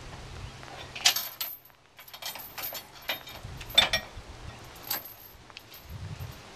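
Steel chains and trailer hitch hardware jangling and clinking as they are handled during unhitching, in several short rattling bursts about a second in, near the middle and about five seconds in.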